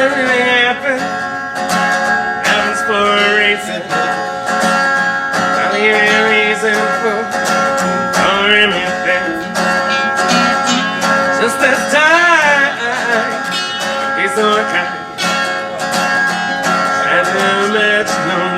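Live acoustic band music: acoustic guitars strumming and picking, with a wavering lead melody over them.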